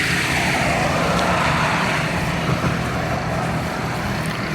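Road traffic at a busy intersection: a vehicle passes close by, its engine and tyre noise falling in pitch as it goes, over a steady low rumble of other traffic.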